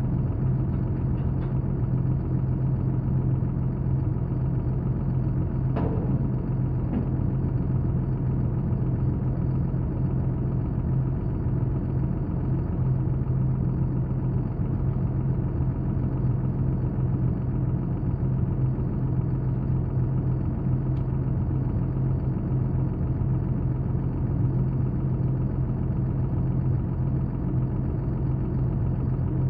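Engine idling steadily with a constant low hum. One short sharp sound, like a light knock, about six seconds in.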